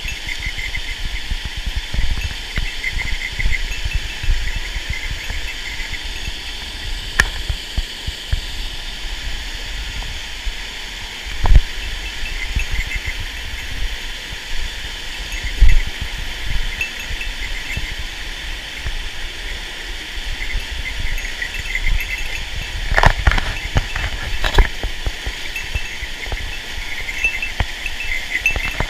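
Mountain stream running over rapids: a steady rush of water, with irregular low thumps and a few sharp knocks late on.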